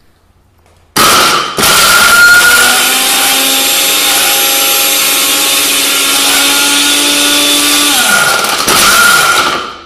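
Countertop glass-jar blender switched on about a second in and running loud and steady with a smartphone in the jar, its motor whine holding pitch. Near the end the pitch sags and climbs again, then the motor shuts off.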